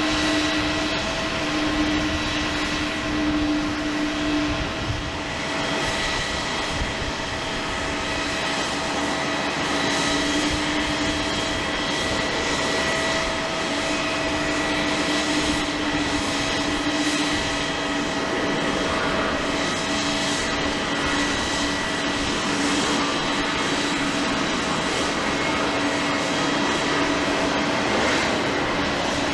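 Boeing 737-800 airliner's CFM56 turbofan engines running with a steady whine, several held tones over a constant rush, without a clear swell or fade.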